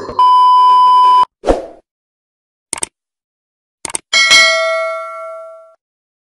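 Editing sound effects: a steady high test-card beep lasting about a second, a short burst of noise, two quick clicks, then a notification-bell ding that rings out and fades over about a second and a half, the stock sounds of a subscribe-button animation.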